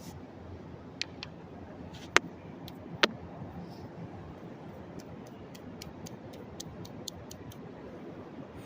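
Rocks knocking together as they are set into a fire ring: a few sharp clacks, the loudest about two and three seconds in. Then comes a run of faint, quick ticks over a steady background hiss.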